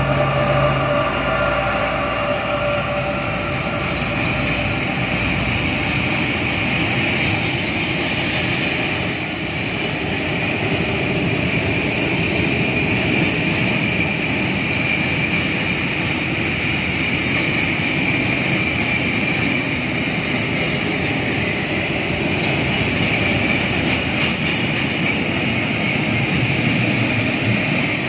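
A freight train passing at close range: a diesel locomotive's engine runs as it goes by, fading within the first couple of seconds, then the steady wheel-on-rail noise of boxcars and container wagons rolling past.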